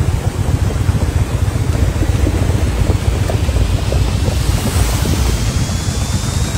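Muddy floodwater rushing across a road, a loud steady roar with wind buffeting the microphone. A faint, slowly rising whine comes in over the second half.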